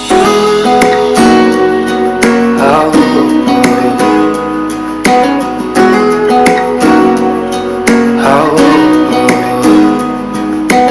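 Acoustic pop song playing through a small Bluetooth speaker at full volume: an instrumental passage of strummed acoustic guitar chords between sung lines.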